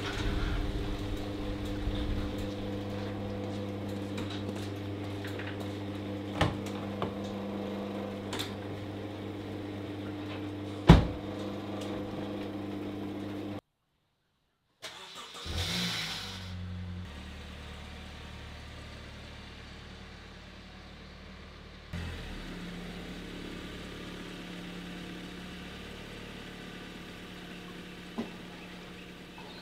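Honda Civic hatchback's engine running at a steady idle, with a few sharp knocks, the loudest about eleven seconds in. The sound drops out briefly near the middle, then an engine starts and settles into a steady, lower idle.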